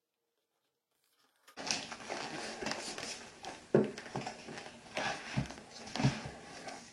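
Vinyl wrap film being handled and worked by hand: rustling and crinkling with several soft knocks, starting suddenly about a second and a half in after near silence.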